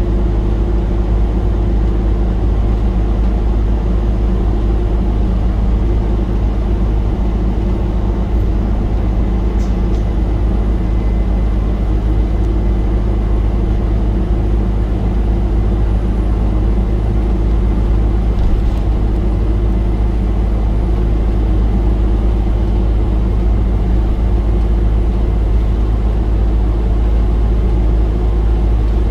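Optare Solo single-decker bus's diesel engine pulling steadily under load on a hill climb, heard from inside the passenger saloon as a continuous low drone.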